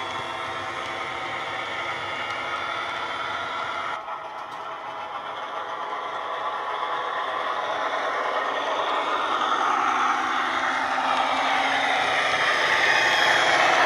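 Model locomotive's DCC sound decoder playing the sound of Falcon's Maybach diesel engine through two Megabass speakers. The engine runs steadily, breaks off about four seconds in, then grows steadily louder as the model approaches.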